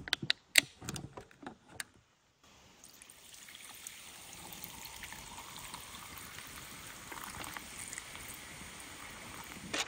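A few sharp clicks as a can of raspberry lime seltzer is cracked open, then, about two and a half seconds in, a steady trickling pour of the seltzer from the can over ice into an insulated tumbler.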